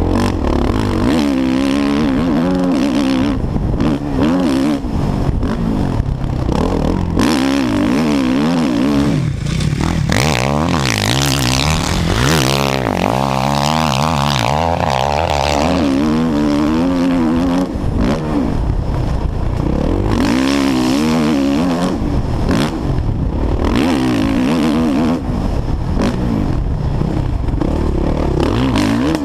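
Suzuki RM-Z450 single-cylinder four-stroke motocross engine under hard riding, revving up and down repeatedly as the rider works the throttle and gears around the track. About a third of the way in, a rush of wind noise on the microphone swells over the engine for several seconds.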